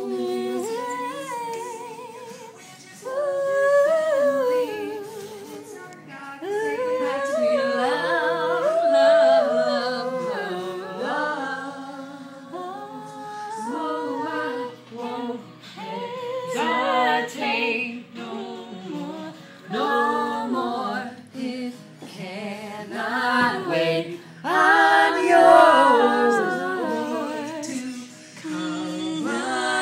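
A small group of voices singing a cappella in harmony, in sung phrases with short breaks between them.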